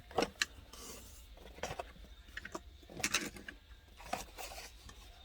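Handling noise from toy car packaging: scattered plastic clicks and rustles as packaged diecast cars are picked up and set down.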